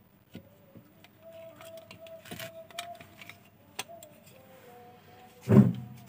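Plastic housing of a keypad mobile phone being handled, with scattered light clicks, then set down with one dull thump on a rubber repair mat about five and a half seconds in.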